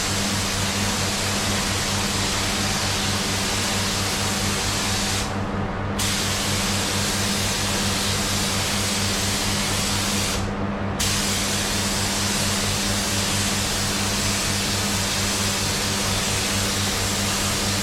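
Automotive paint spray gun hissing as primer is sprayed onto a car's side panels, the trigger let off twice briefly partway through. A steady low hum runs underneath.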